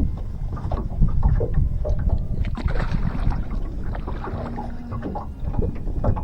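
Water moving around a fishing boat on a fast-running river: a steady low rumble with irregular splashes and knocks.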